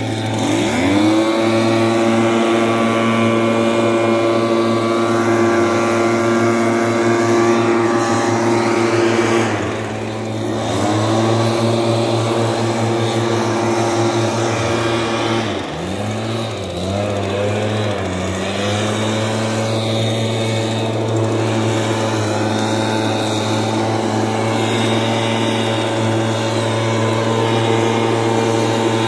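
Small two-stroke engine of a backpack motorized mist-blower sprayer running at high revs. It eases off briefly about a third of the way in and again about halfway, then revs back up and holds steady.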